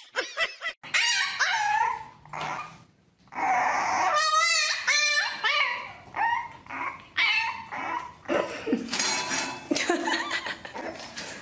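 Puppies whimpering and yipping in a string of short, high, wavering cries, with a brief pause about three seconds in.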